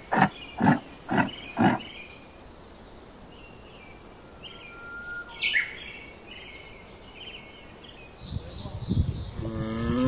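Yaks grunting: about five short, loud grunts in quick succession in the first two seconds, then faint bird chirps, and near the end a low rumble and a deep, falling lowing call.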